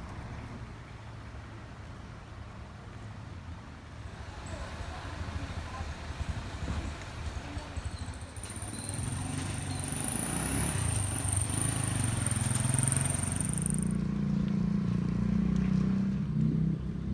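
A motor vehicle's engine running, louder in the second half, with a high thin whine for several seconds in the middle.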